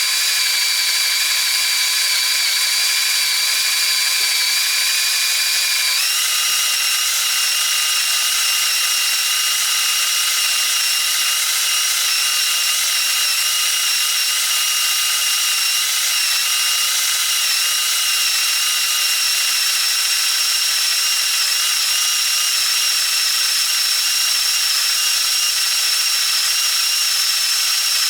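Drill driver motor whining steadily as an M8 x 1.25 drill-tap bit cuts slowly into quarter-inch steel plate. The whine steps up in pitch about six seconds in and then holds steady.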